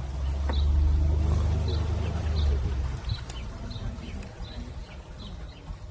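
A low boat engine rumble swells for about three seconds and then fades, while a bird repeats a short high chirp about twice a second.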